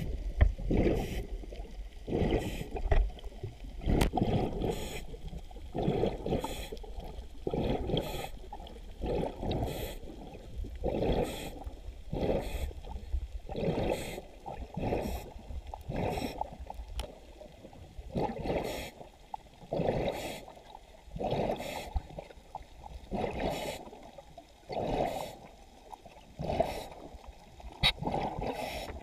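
Muffled underwater water noise heard through a GoPro's waterproof housing during a scuba descent, swelling and fading in gurgling surges about once a second.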